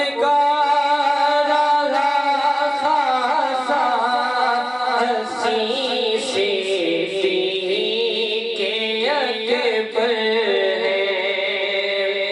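A man sings devotional verse in praise of a saint into a microphone, holding long notes that waver and slide between pitches.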